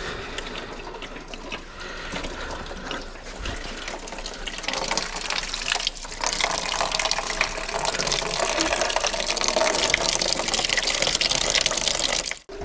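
Engine coolant draining from a car's cooling system in a steady stream, splashing into a plastic drain pan. The flow gets louder about five seconds in.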